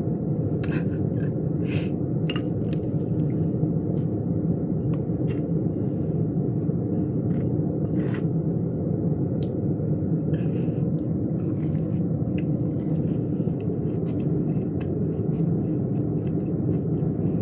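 Steady low background rumble, with scattered short sharp clicks and smacks of someone eating.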